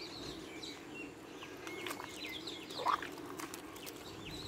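A hand squelching and sloshing through a thick, wet slurry of fermented kitchen-waste liquid fertilizer in a metal pot, with small birds chirping repeatedly.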